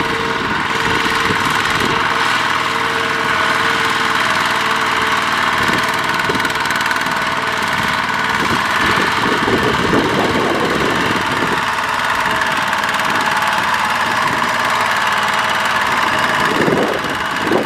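Single-cylinder diesel engine of a two-wheel walking tractor running steadily while it pulls a trailer loaded with rice sacks, its wheels churning through mud.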